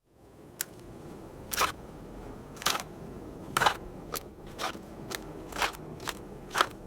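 Faint crackling hiss with sharp clicks about once a second, coming twice as fast over the last two seconds.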